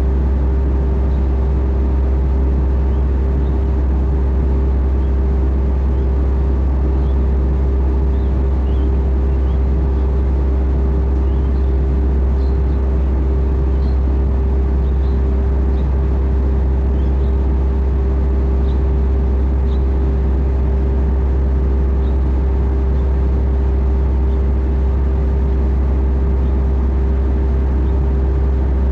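Hitachi Zaxis 110 excavator's diesel engine running at a constant speed with the arm held still, a steady low hum and rumble with a faint steady tone above it, heard from inside the operator's cab.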